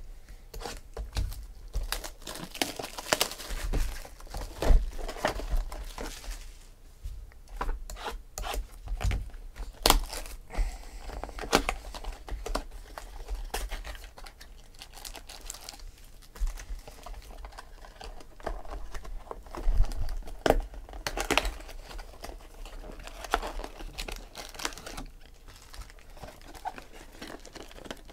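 Plastic shrink wrap being torn and crinkled off a sealed box of trading cards, irregular crackling and tearing. Near the end, foil card packs are handled and stacked, with lighter rustling.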